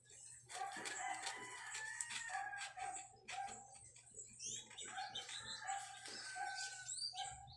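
Chickens clucking in a steady run of short calls, about two a second, with small birds chirping near the end.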